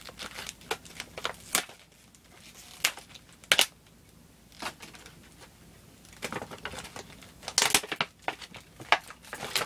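Booster-pack wrapper of trading cards being torn open and crinkled by hand, in irregular crackling bursts with short pauses between them, busiest and loudest in the second half.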